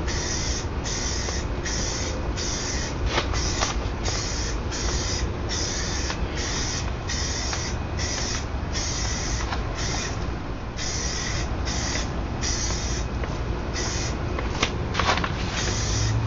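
Aerosol spray-paint can hissing in short repeated bursts, about two a second, as a Corvette's last coat is touched up. A steady low hum runs underneath, with a few sharp clicks.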